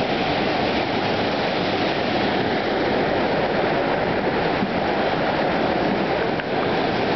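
Floodwater of a swollen river rushing past in a loud, steady torrent, with water spilling over onto the road.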